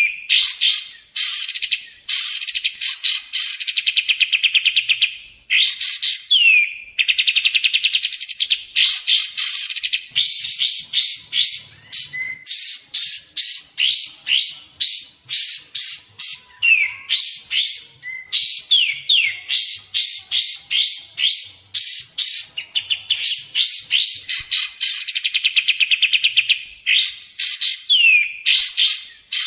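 Kapas tembak bulbul calling loudly and without a break. Rapid strings of sharp, chattering notes repeat phrase after phrase, with short falling whistles between them: a lure recording of the bird's song.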